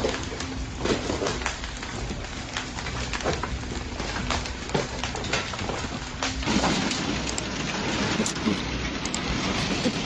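Hailstones pelting down in a heavy storm: a steady hiss of falling ice and water, with many sharp separate cracks of stones hitting hard surfaces. It gets heavier and louder about six and a half seconds in.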